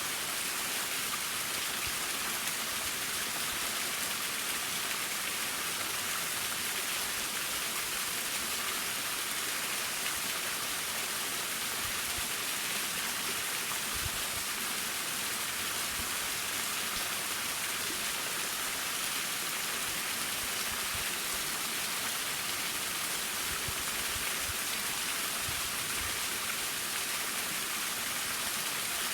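Akataki waterfall on Mount Tsukuba: falling and splashing water making a steady, even hiss.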